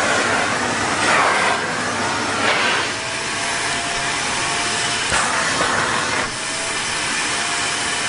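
Vacuum cleaner running: a steady rush of air with a few brief swells, and a steady motor whine joining about three seconds in.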